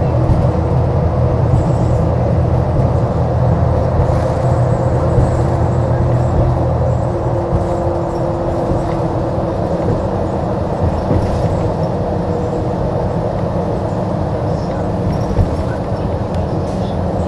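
2014 New Flyer XDE60 articulated hybrid bus running, its Cummins ISL9 inline-six diesel giving a steady low drone with a steady whine over it. A second tone is held for a couple of seconds near the middle, and the drone eases a little after about eight seconds.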